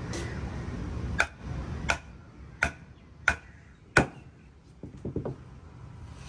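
Fish being chopped on a wooden table: five sharp chopping blows about two-thirds of a second apart, then a few lighter knocks.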